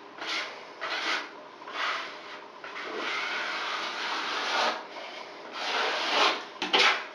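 Paintbrush scrubbing liquid waterproofing membrane onto tile backer board. It goes in short strokes about a second apart, then a longer stretch of continuous brushing in the middle, then two louder strokes near the end.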